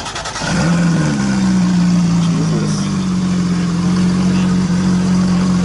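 Porsche 911 GT3's naturally aspirated flat-six starting up. It cranks briefly, catches about half a second in with a short rise in revs, then settles into a steady fast idle.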